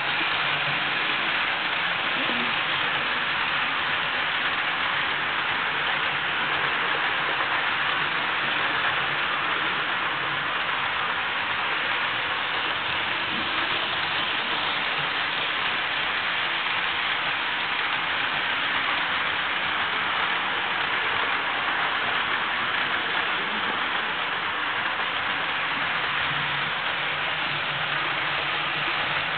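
HO-scale model trains running on a layout: a steady whirring hiss of wheels on the track and small motors, with a faint low hum now and then as a train comes nearer.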